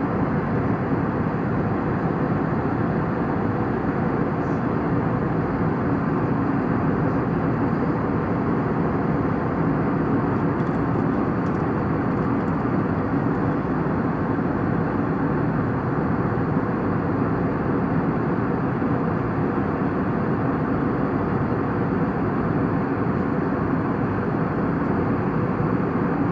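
Steady, unbroken cabin noise of an aircraft in flight: an even rushing hum of engines and airflow.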